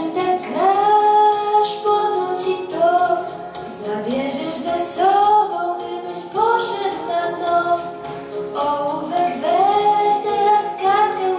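A young girl singing a pop song into a handheld microphone over a recorded backing track, amplified through a PA speaker, with long held notes.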